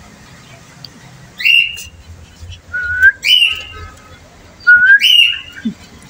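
Caged green parrots giving loud, shrill screeching calls, three outbursts about a second and a half apart, each sweeping upward and then held high. The calls are typical of the birds squabbling when their keeper comes close.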